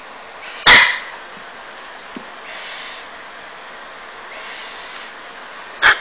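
Parrot chicks giving short, loud screeching squawks while being handled: one about a second in and a quick double squawk at the end, with two softer hisses in between.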